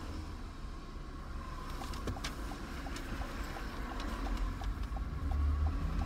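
Inside a parked car, the engine hums low and steady. A little over two seconds in there is a click, followed by the car's indicator ticking evenly at about three ticks a second.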